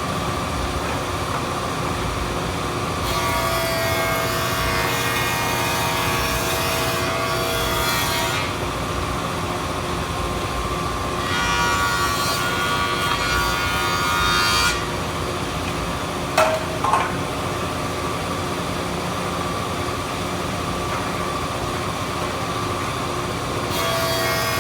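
A stationary woodworking milling machine with a rotating cutterhead runs steadily while walnut boards are fed through it. Two passes of cutting noise last about five and four seconds, and a third pass starts near the end. Two sharp knocks come a little past halfway.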